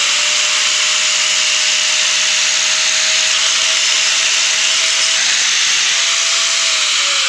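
Angle grinder running at full speed, grinding down a metal part clamped in a vise, with a steady high motor whine over the hiss of the disc on metal. Near the end it is switched off and the whine falls as it spins down.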